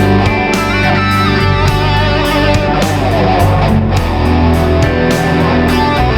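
Electric guitar played through a Line 6 Firehawk FX multi-effects processor, sounding a run of sustained notes with a string bend about a second in.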